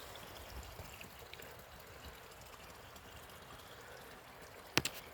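Steady rush of a waterfall's falling water, fairly faint, with one sharp click near the end.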